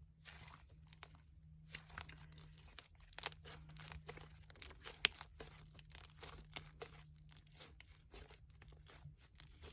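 Soft, creamy slime being squished and stretched by hand, giving a run of sticky, irregular crackles and small pops, with one sharper pop about halfway through.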